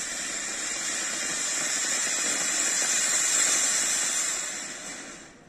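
Anar (flower pot) firework fountain hissing as it sprays sparks, one of a stack of six anars glued one atop another. The hiss builds steadily, then dies away near the end as that fountain burns out.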